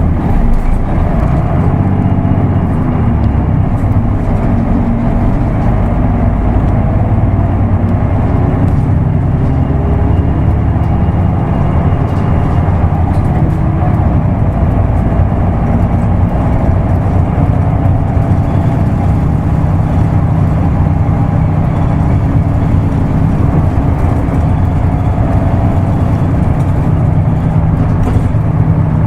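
Isuzu Erga Mio bus's diesel engine running while the bus is driven, its pitch rising and falling several times in the first half, then holding fairly steady.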